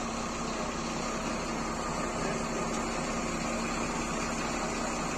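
A steady mechanical hum over an even hiss, unchanging throughout.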